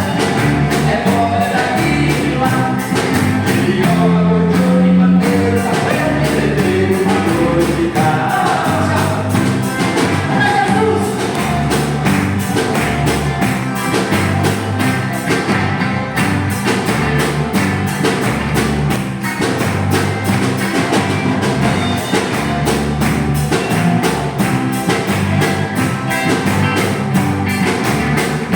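A Christian band playing a rock-style hymn: a steady drum beat under bass and electric guitar.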